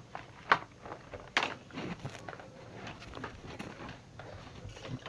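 Handling noise from hand puppets being moved about: scattered light knocks and rustling, with two sharper knocks about half a second and a second and a half in.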